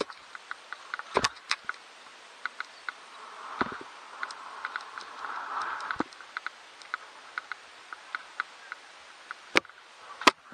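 Mountain bike rattling over rough pavement: light sharp ticks about three times a second, with a few heavier knocks as the tyres hit cracks and edges.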